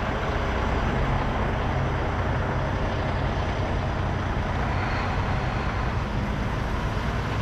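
Semi truck's diesel engine running steadily, a low, even drone with no breaks or changes.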